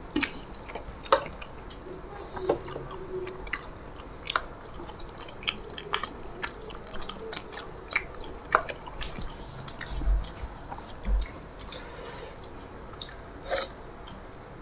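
Close-up eating sounds of people eating rice and curry with their hands: wet chewing, lip-smacking and irregular small squelching clicks as fingers mix and pick up rice. There are two dull low bumps about ten seconds in.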